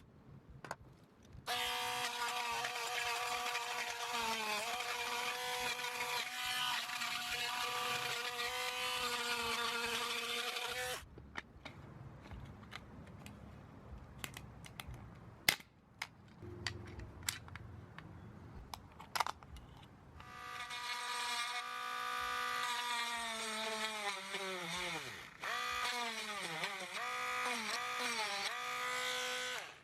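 Small handheld electric power tool motor whining steadily for several seconds, then stopping. After some clicks and small knocks it runs again, its pitch dipping and recovering several times as it bites under load.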